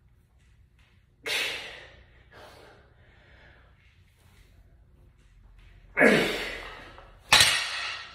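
A man gasping and blowing out hard breaths as he strains through heavy barbell front squats, the loudest about six seconds in. A sharp heavy thump comes near the end.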